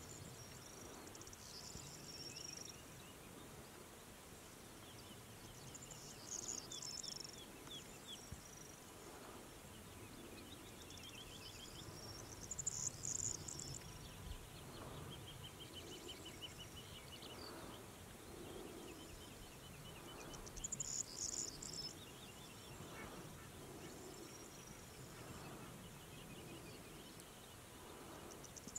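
Faint open-field ambience: a songbird repeats a short high song phrase every several seconds over quiet, rapidly pulsing insect trills.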